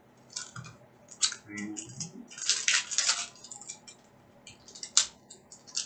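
Wrapper of an Upper Deck hockey card pack crinkling and tearing as it is ripped open by hand, in short bursts that are loudest about halfway through. A single sharp click near the end.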